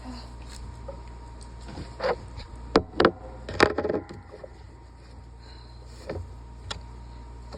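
A person with a cold sneezing in a quick run of three or four sudden, wet, barky sneezes about two to four seconds in, the last one voiced, then two smaller, shorter sounds near the end.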